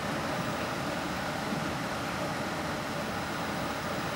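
Heavy rain pouring, a steady, even hiss without breaks.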